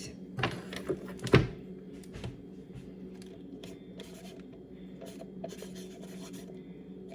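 Someone writing the date by hand: a run of short, scratchy writing strokes. A few knocks come in the first second and a half, the loudest about a second and a half in.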